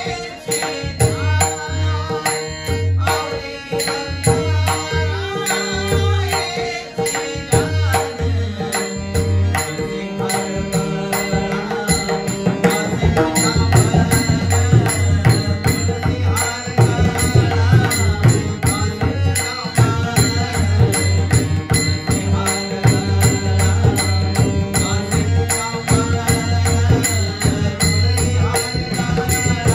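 Marathi devotional bhajan: singing of an abhang over pakhawaj drumming, with a steady high ticking rhythm and held notes underneath. The drumming grows busier and the music louder about twelve seconds in.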